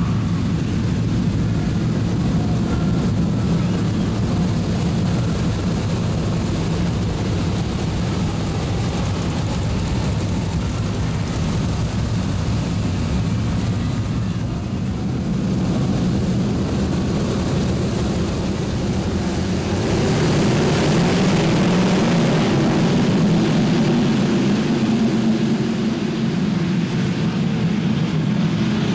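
The V8 engines of a pack of sprintcars running together, a dense, steady drone that grows louder about two-thirds of the way through as the field passes close by.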